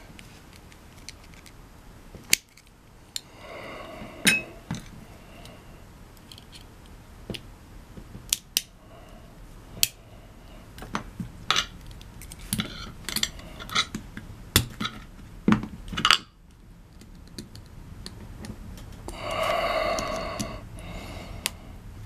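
Small sharp metal clicks and clinks, irregular throughout, as a thin tool pries at the retaining clip on a padlock's brass removable core held in the fingers. A brief pitched sound comes near the end.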